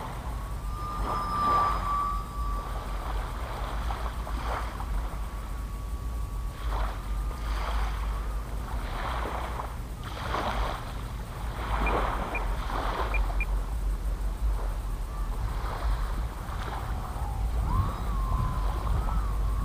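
Wind buffeting the microphone, with small waves lapping softly at the water's edge every second or so, and a faint high whine for the first several seconds.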